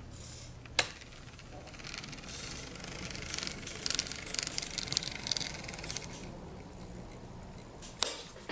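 N scale Bachmann DDA40X model locomotive chassis running on track: a steady motor hum under a fast, fine rattle of gears and wheels that swells for a few seconds in the middle, part of it the little noise from a 3D-printed axle gear that cracked when the axle was forced in too far. Two sharp clicks, one near the start and one near the end.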